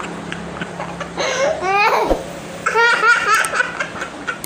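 High-pitched laughter, giggling in two short bursts, over a faint steady hum.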